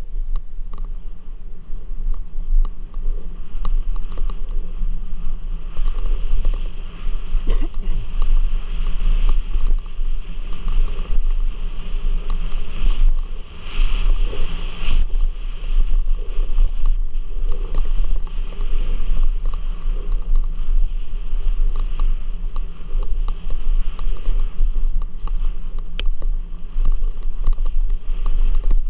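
Downhill mountain bike ridden down a dirt singletrack: tyres rumbling over dirt and rocks, with rattles and knocks from the bike, under a heavy low buffeting of wind on the helmet-mounted camera.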